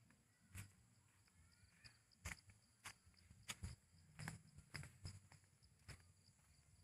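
Near silence, broken by about a dozen faint, irregular clicks and soft knocks, over a faint steady high hum.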